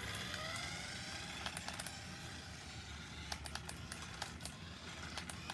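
Toy remote-control car's small electric motor whining faintly as it drives, with a scatter of light clicks, most of them in the middle and second half.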